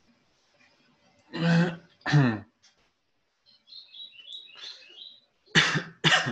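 A man's short non-word vocal sounds, two about a second and a half in and two more near the end. Between them is a quick run of faint short high notes.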